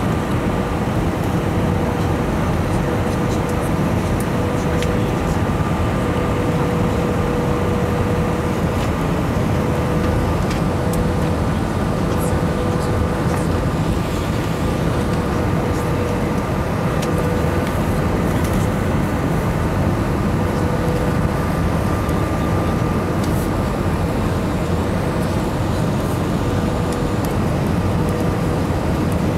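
Cabin noise inside an Airbus airliner: a loud, steady rumble of the jet engines and airflow, with a thin whine that fades in and out.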